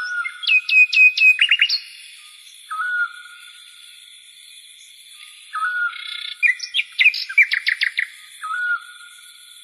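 Bird-like chirping: bursts of quick, repeated whistled notes and short pitch sweeps with pauses between them, over a faint steady high tone.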